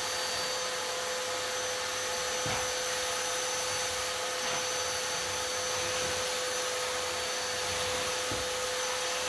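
Wet/dry shop vacuum running steadily while the floor is vacuumed: an even rushing noise with a constant motor hum. A couple of faint knocks sound about two and a half seconds in and again near the end.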